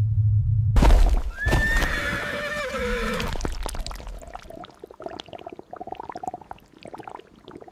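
A loud animal call about a second in that holds its pitch and then slides down for about two seconds, followed by a run of quick clicks and taps.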